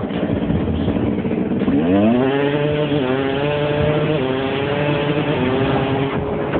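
Dirt bike engine revving up hard about two seconds in, then running at high revs with a few brief dips in pitch.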